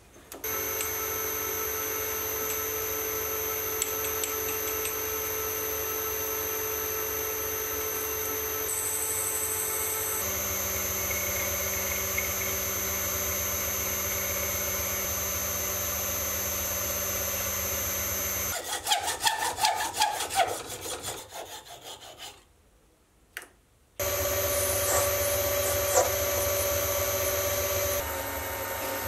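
Mini lathe running and turning a white plastic rod, a steady motor tone with cutting noise whose pitch changes about a third of the way through. About two-thirds in comes an uneven burst of scraping, then a brief near-silent pause before the machine runs steadily again.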